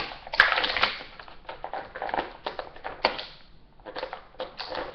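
Plastic and cardboard toy packaging crinkling and rustling by hand, with irregular sharp clicks and snaps as an action figure is worked free of it.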